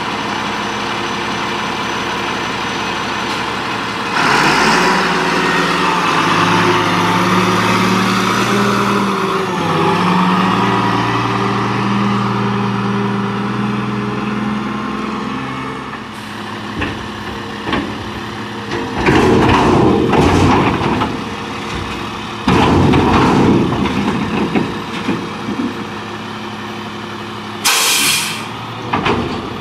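1999 Crane Carrier garbage truck's diesel engine picks up with a rising note about four seconds in and runs under load for some seconds, then settles. Two loud surges of noise come in the second half, and a short sharp hiss of air near the end, like an air brake being released.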